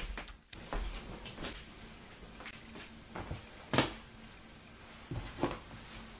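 Fabric pieces being gathered and arranged by hand on a tabletop: soft rustling broken by a few sharp knocks and clicks, the loudest a little before four seconds in.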